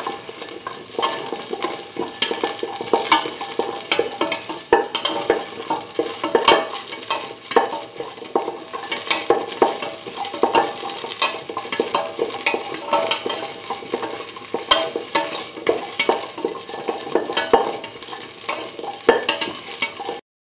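Whole shallots and fennel seeds sizzling in hot oil in a stainless steel pan while being stirred, with frequent scrapes and clinks of the stirring utensil against the metal pan. The sound cuts off suddenly near the end.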